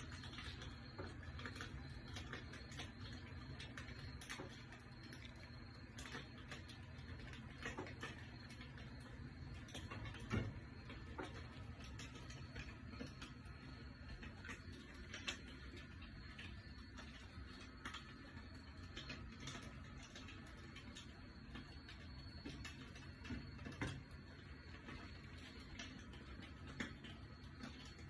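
Crackling campfire sound from a bonfire video played back through the room's speakers: irregular sharp pops and snaps over a steady low hum.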